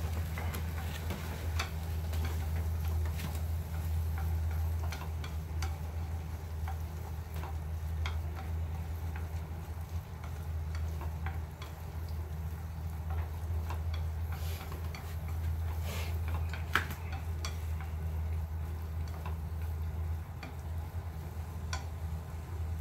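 Stir-frying in a pan: irregular light clicks and taps of a utensil against the pan over a steady low hum, with one sharper tap about 17 seconds in.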